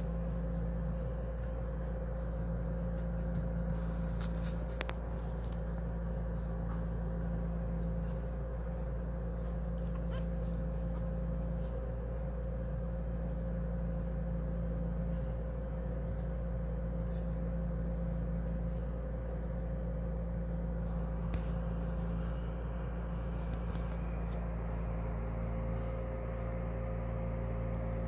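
Faint short high squeaks from two-week-old puppies, coming every second or two, over a steady machine hum and hiss.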